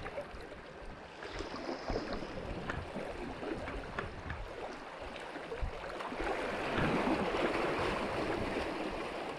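Sea water washing and lapping at the shoreline, with a louder wave surging in about seven seconds in.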